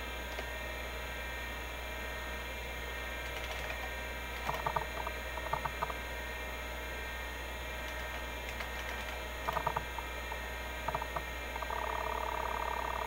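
Seagate ST-251-1 MFM hard drive spinning with a steady whine. Its stepper-motor head actuator gives short groups of chirping seek noises as the disk checks run, and turns into a continuous rapid buzz of seeking near the end.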